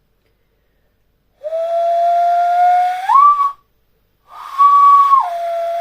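Hand whistle blown across the knuckles of cupped hands: two loud whistled notes with breath noise around them. The first holds a low pitch and jumps up near its end; the second starts on the high pitch and drops back to the low one.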